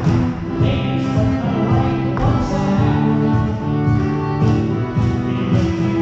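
Live contra dance tune played on fiddle and guitar.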